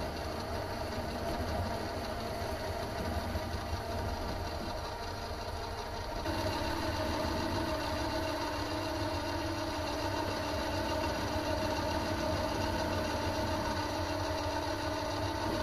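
Mini metal lathe running, turning down a steel car wheel bolt. About six seconds in, a steadier, higher tone joins the motor's running sound and holds.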